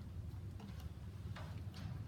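Masimo SpO2 sensor cable connector being pushed into the ventilator's SpO2 socket: a few light plastic clicks and handling noise, the clearest in the second half, over a low steady hum.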